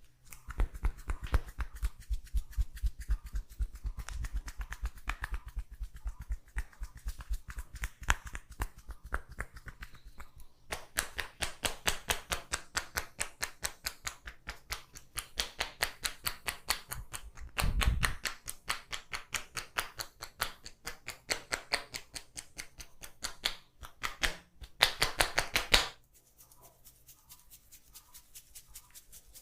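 Hands tapping rhythmically on a person's body in a tapping massage: quick, even taps, several a second. They turn sharper about a third of the way in and stop near the end.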